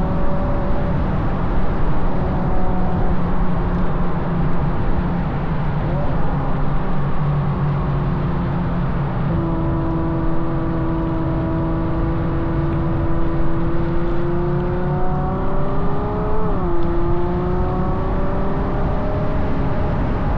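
Ferrari GTC4Lusso's naturally aspirated V12 through a Capristo exhaust, pulling along under load with its note climbing slowly, dropping sharply about three-quarters of the way through and then climbing again. Heavy wind and road rumble on the car-mounted microphone underneath.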